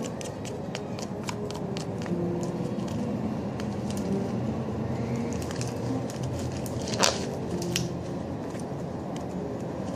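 Thick, sticky slime being stirred hard in a container as it forms: wet squishing and crackling with irregular clicks of the stirring utensil against the container, and one louder click about seven seconds in.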